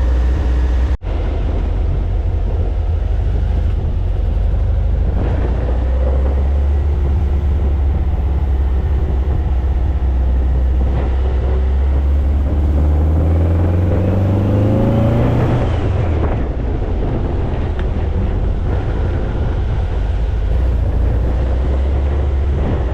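1967 dune buggy's engine running under way, with a steady low drone. From about twelve seconds in its pitch rises for a few seconds as it speeds up, then it falls back.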